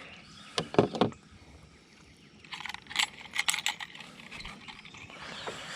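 Fishing gear being handled: a couple of knocks, then a brief metallic jingling rattle about halfway through.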